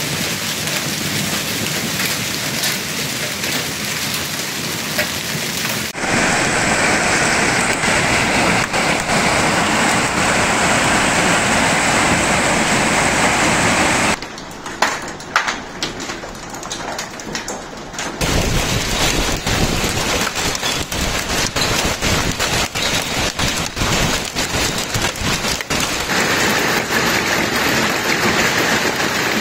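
Hailstorm: hailstones and heavy rain pelting down, a dense loud patter full of sharp individual hits. The sound changes abruptly several times, and one quieter stretch lets single hailstone strikes stand out.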